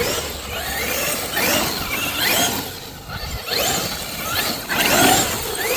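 Traxxas X-Maxx RC monster truck's brushless electric motor revving up and down several times, a whine that sweeps up in pitch and falls back.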